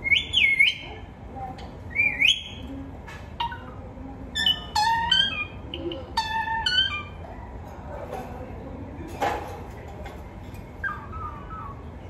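Caged rose-ringed parakeet whistling and calling: a few sweeping, rising whistles, then a quick run of short, sharp descending calls, and a softer descending call near the end. A single click about nine seconds in.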